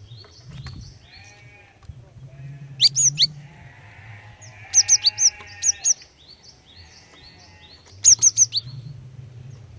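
Female cinereous tit (gelatik batu) calling in three loud bursts of quick, sharp, high descending notes: a few about three seconds in, a longer run around five seconds, and four or five near the eight-second mark. A quieter call repeats about once a second underneath, over a low hum.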